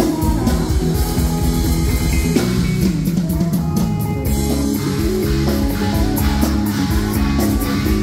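Live rock band playing through a PA system: electric guitar over a driving drum kit, a steady full-band passage.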